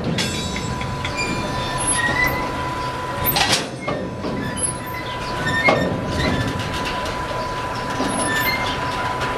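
Covered sliding-wall freight wagons rolling slowly past during shunting, their wheels rumbling on the rails with a steady thin squeal. Sharp metallic clanks come about three and a half seconds in and again near six seconds.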